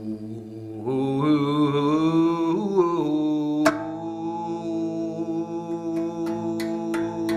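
A man's voice hums a low, wavering chant into the skin of a shamanic frame drum from about one to three seconds in, over the sustained ringing of a RAV Vast steel tongue drum in B Celtic double-ding tuning. Just before four seconds one tongue is struck sharply, and several lighter strikes follow near the end.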